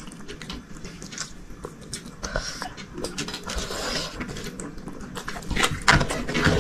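Eating sounds: chewing and mouth smacks, with small clicks and taps throughout.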